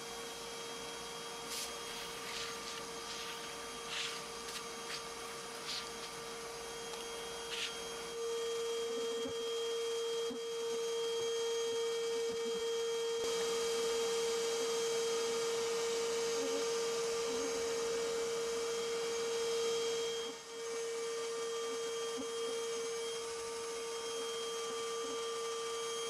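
Bee vacuum's motor running with a steady whine, getting louder about eight seconds in and dipping briefly about twenty seconds in. A few light clicks come in the first eight seconds.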